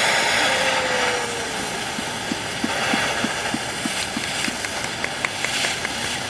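Ames Iron Works flywheel steam engine running slowly while warming up: a steady hiss of steam, with a run of even mechanical clicks about three a second through the middle, then a quicker run of sharper ticks.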